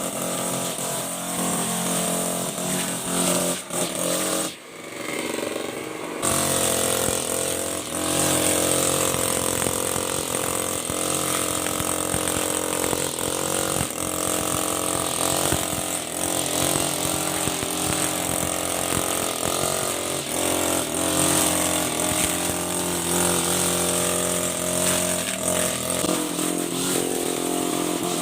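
Honda GX35 four-stroke engine on a brush cutter running steadily at speed; it dips briefly about four to six seconds in, then runs on evenly.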